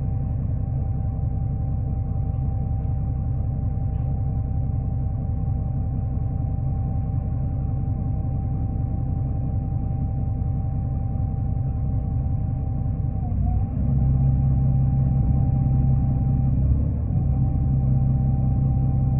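Heard from inside a 2005 New Flyer D40LF diesel transit bus: a steady low engine rumble with a thin steady whine over it. About two-thirds of the way through the rumble steps up louder, with a brief wobble in the whine there and again a few seconds later.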